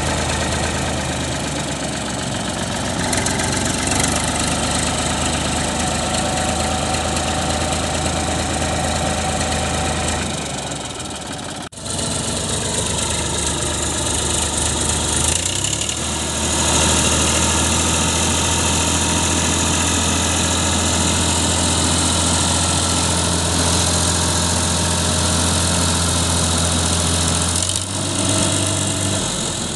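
Massey Ferguson tractor's diesel engine running with a steady low drone, working under load to pull free of deep mud on a tow rope. The sound breaks off sharply about twelve seconds in, then comes back louder from about sixteen seconds on.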